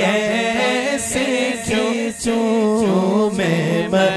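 Urdu naat sung by male voices: a wavering melodic vocal line held between words of the refrain, over a steady sustained low tone.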